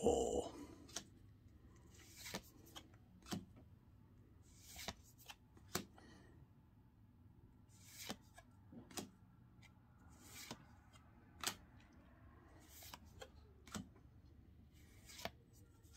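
Pokémon trading cards handled in a stack: each card is slid off the front and tucked behind the others with a short papery swish or flick, roughly once a second, with a louder rustle at the start.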